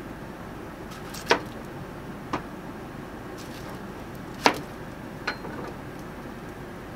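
Kitchen knife cutting through a red onion and knocking on a cutting board: four sharp, unevenly spaced knocks, two of them louder, over a steady low background noise.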